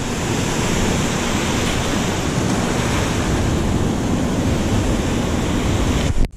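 Ocean surf washing and foaming around the rocks close by, steady and loud, with wind on the microphone. It cuts off suddenly near the end.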